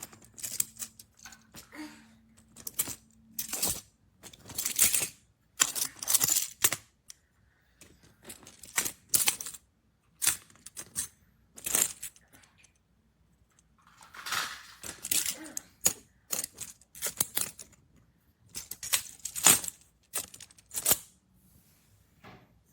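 Magnetic building blocks clacking and clattering against each other as they are handled, in irregular bursts of sharp clicks with short pauses between.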